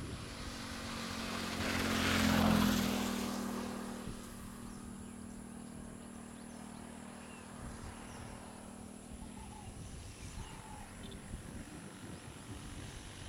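A motor engine passes by, swelling to its loudest about two seconds in and fading away by four seconds.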